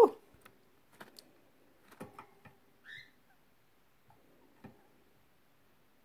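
Fledgling Eurasian blackbird calling: a short rising squeak right at the start and a brief higher chirp about three seconds in, with a few light taps between.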